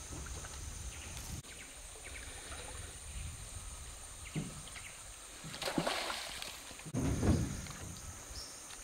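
Outdoor river ambience: a steady high hiss with scattered short chirps, low rumble that cuts off about a second and a half in, and two brief splashy bursts about six and seven seconds in.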